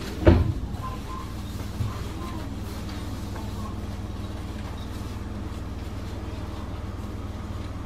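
Steady low hum of a standing Enshu Railway 2000 series electric train, its onboard equipment running while it waits. A sharp thump just after the start and a lighter knock about two seconds in.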